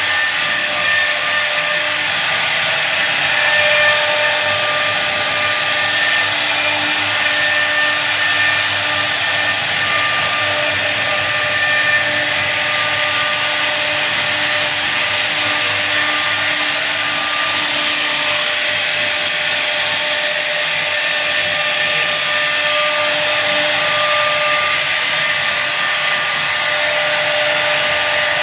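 CNC router spindle running at high speed while carving a design into wood: a steady, loud whine over a continuous cutting hiss.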